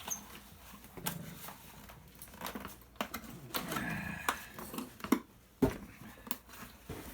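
Scattered clicks, knocks and a couple of sharper thumps of plastic and metal appliance parts and a screwdriver being handled while a dryer part is pried apart.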